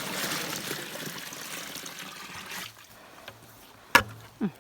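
Well water running into a livestock water tub, stopping about two and a half seconds in; a sharp knock follows near the end.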